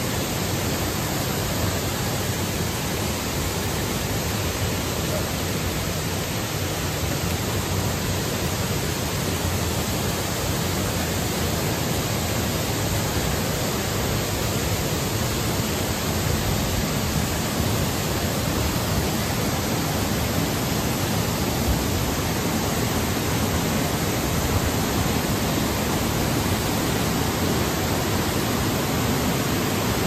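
Waterfall pouring into a pool: a steady, even rush of falling water.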